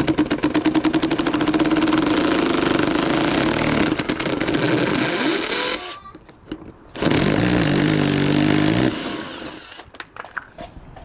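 A small motor running loudly in two runs: one of about five seconds that starts abruptly with a fast pulsing, then a shorter steady run of about two seconds after a brief pause.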